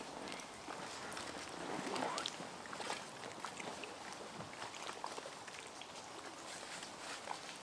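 Water sounds around a packraft on a lake: paddle splashes and drips, with many small scattered taps and one fuller swish about two seconds in.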